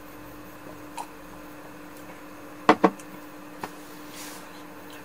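Tableware clicking during a meal: two quick sharp clicks a little past halfway, with a few fainter single ticks, over a steady low hum.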